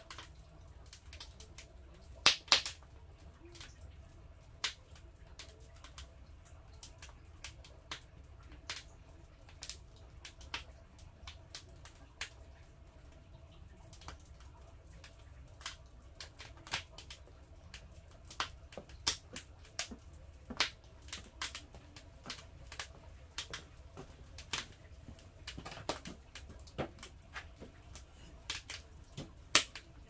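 Firewood burning in a wood stove, crackling with irregular sharp pops, two loud ones about two and a half seconds in, over a faint low steady hum.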